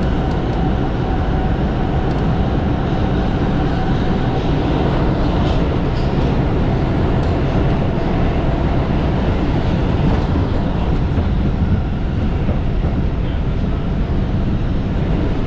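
New York City subway train running steadily through a tunnel, heard from inside the car: a continuous loud rumble of wheels on the rails and car noise.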